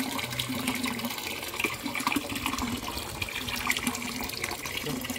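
Water pouring from an inlet pipe and splashing steadily into a fish pond.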